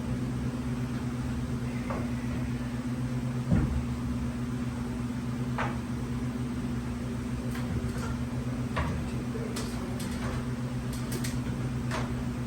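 A machine running with a steady hum, with scattered light clicks and knocks and one louder knock about three and a half seconds in.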